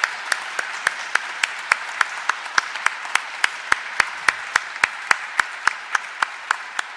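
Congregation applauding in a packed church, with one nearby pair of hands clapping loud and steady at about three and a half claps a second over the general applause, which slowly dies down.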